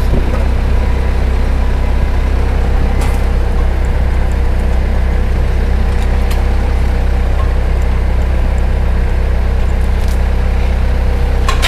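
Toyota forklift engine idling steadily while holding a load, with a few faint metal clinks from the lifting chains.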